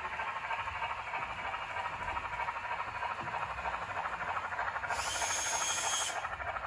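Sound decoder of an HO-scale Union Pacific steam locomotive playing steady, quick steam chuffing as the model runs. About five seconds in comes a brief burst of high steam hiss, lasting about a second.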